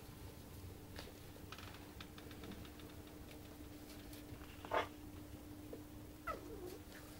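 Puppy crying: a short squeak about two-thirds of the way through, then a brief whimper that slides down in pitch near the end, over a faint steady hum and a few soft clicks.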